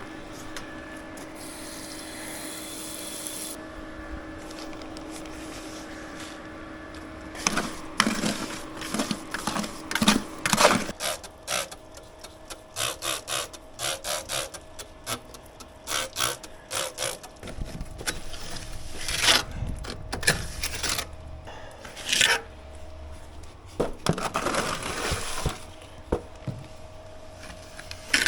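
Tool and material handling: a steady hum for about the first ten seconds, then a long run of knocks, taps and scrapes, with a quick regular series of taps a little past the middle.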